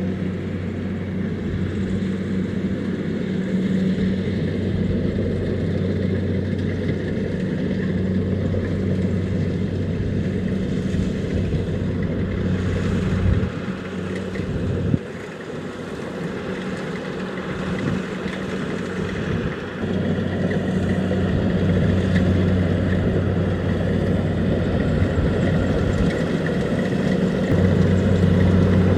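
Engine of a Kubota DC70 Plus rice combine harvester running steadily with a low, even hum. The hum weakens for a few seconds around the middle, with one sharp click, then comes back to full strength.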